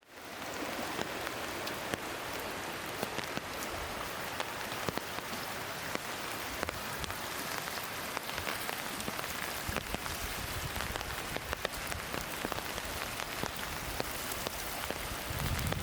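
Waterfall: a steady rush of falling water splashing onto rock, with a patter of many small droplets. A low rumble swells near the end.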